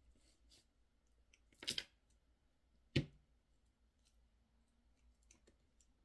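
Pliers working apart a beaded necklace: faint small clicks, a short clattering rattle about a second and a half in, and one sharp snap at about three seconds.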